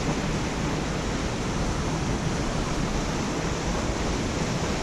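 Steady rushing of flowing water, an unbroken noise with no distinct splashes or events.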